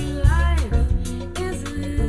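A song with singing, heavy bass and a steady drum beat, playing over a car audio system inside a van.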